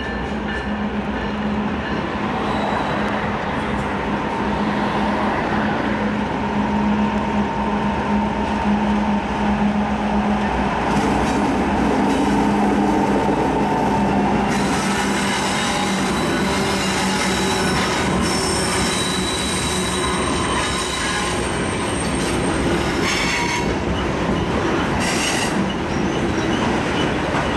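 A freight train passing on a curve. The diesel locomotives run with a steady engine drone through the first half. Then the covered hopper cars roll by with high-pitched wheel squeal and occasional clicks from the wheels over the rails.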